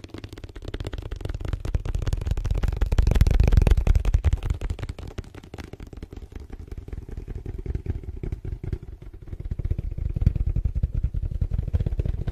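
Very fast, continuous tapping by hand on a dark, rounded hand-held object held right over the microphone, a dull, thudding roll of taps. It swells louder about three seconds in and again in the last few seconds.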